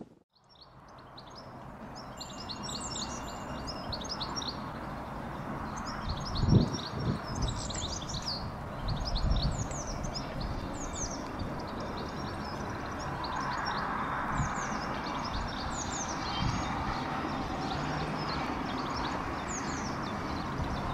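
Small birds chirping and singing throughout, over the steady rush of an approaching steam-hauled train, an LMS Coronation-class locomotive, which grows louder in the second half. A brief low thump about six and a half seconds in.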